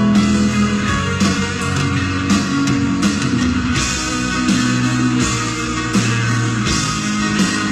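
Live rock band playing a slow power ballad, guitar to the fore over piano, bass and drums, with sustained notes and occasional cymbal strikes.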